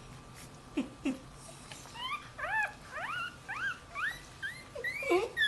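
Chihuahua puppy crying: after two short low falling sounds near one second, a run of short high-pitched rising whines, about two a second, starts about two seconds in.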